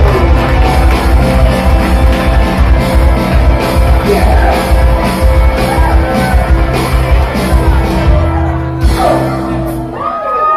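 Live cover band playing loud rock-style dance music with a steady, bass-heavy beat, singing and shouts. The drums and bass stop about nine seconds in, leaving a held note fading out as the song ends.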